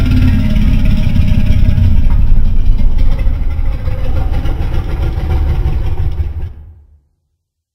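Dragon sound effect: a loud, deep, rough rumbling that fades out about six and a half seconds in.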